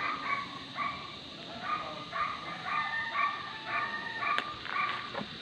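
A dog barking over and over in quick short barks, about three a second, with a short pause about a second in.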